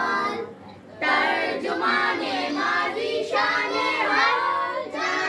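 A group of children singing together in unison, with a short break about half a second in and the singing resuming at one second.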